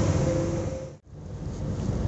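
Z2N electric multiple unit (Z 20827) running, loud and noisy with a steady hum. About a second in, the sound fades out to silence and fades straight back in, a join between two recordings.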